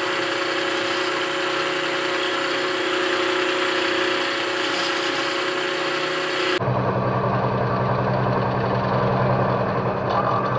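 Vertical milling machine running, its end mill milling down a metal block: a steady motor hum with cutting noise. About six and a half seconds in the sound changes abruptly to a lower, rougher hum.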